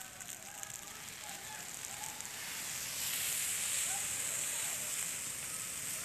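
Turkish red pine forest fire burning: a steady hiss that swells louder about halfway through, with faint distant voices.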